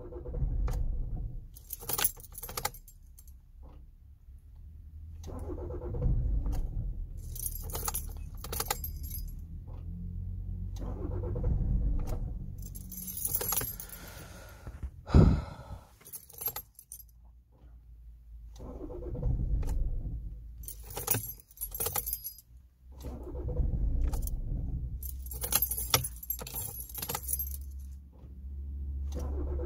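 2006 Toyota Avensis 2.0 D-4D diesel cranked on the starter in several short goes of a few seconds each, with the keyring jangling as the ignition key is turned and a sharp click about halfway through. It is a hard cold start: the engine will not catch on long cranks, and new battery, glow plugs and fuel filter have not cured it.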